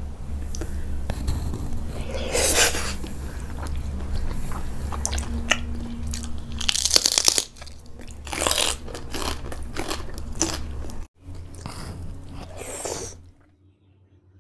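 Close-miked eating: wet chewing of raw salmon sashimi and several loud crunching bites of raw fennel, over a steady low hum. The eating sounds stop about a second before the end.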